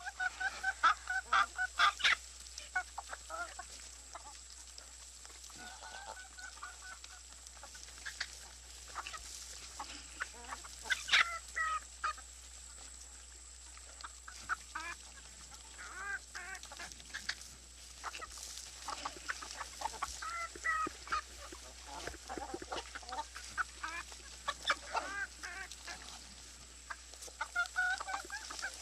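Farmyard poultry calling: many short calls from several birds, coming in clusters, loudest near the start and about eleven seconds in. A faint steady high whine and a low hum run underneath.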